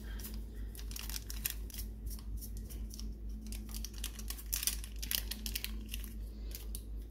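A small foil-plastic sachet crinkling as it is shaken and squeezed empty into a metal flour sifter: a rapid, irregular run of crisp crackles, over a steady low hum.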